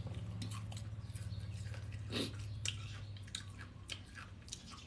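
Close-miked chewing of som tam salad and raw greens: many short, irregular mouth clicks and crunches, one louder about two seconds in, over a steady low hum.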